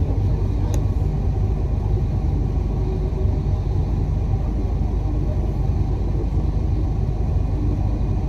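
Steady low rumble of a moving bus, heard from inside on its upper deck.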